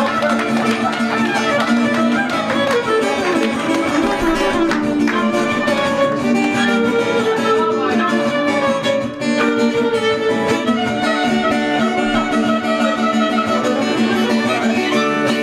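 Violin and acoustic guitar playing an instrumental tune live, the violin carrying the melody over a steady held low note.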